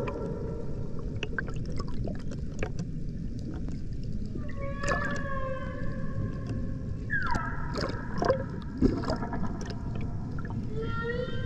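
Humpback whale song recorded underwater: three long, pitched moaning calls, a slowly falling one a little before halfway, a falling cry at about two-thirds, and a rising whoop near the end. Behind them is a steady underwater hiss with scattered clicks.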